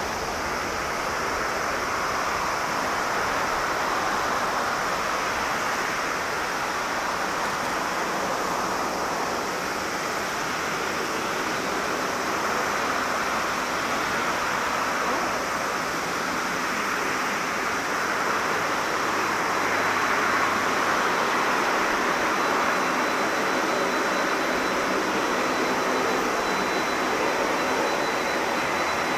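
Boeing 787 Dreamliner's jet engines at takeoff thrust, heard from a distance as a steady rushing roar during the takeoff roll and liftoff, swelling slightly about two-thirds of the way through.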